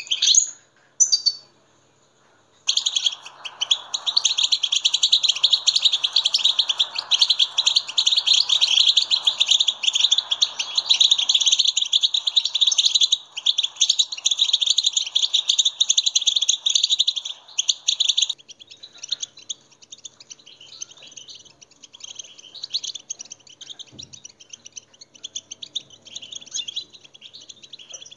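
European goldfinch song: a couple of short call notes, then a long, rapid, loud twittering song. About eighteen seconds in it switches abruptly to quieter, sparser twittering.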